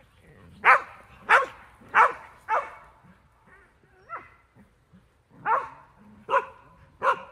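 A dog barking: four sharp barks about 0.6 s apart, a quieter bark about four seconds in, then three more barks near the end.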